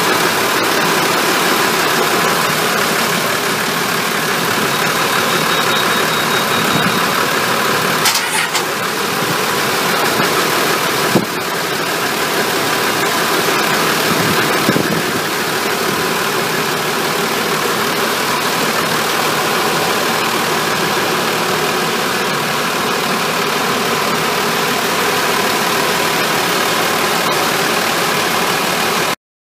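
Inboard six-cylinder turbo-diesel marine engines running steadily, recorded up close in the engine bay as a dense, even mechanical din. A single sharp click is heard about eleven seconds in.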